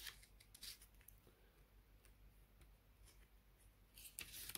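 Faint rustling and crinkling of a thin folded paper booklet as its pages are turned and handled, with a slightly louder rustle about four seconds in.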